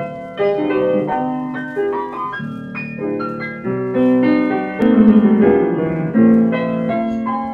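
Solo piano playing the introduction to a song, a run of chords and single notes, heard from an old acetate disc recording.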